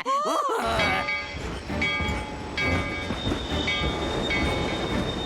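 Cartoon train running with a steady rumble, and a whistle sounding on and off over it.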